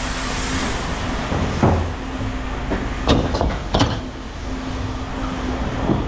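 Scrap metal knocking and clanking a few times, loudest about three to four seconds in, over a steady hum.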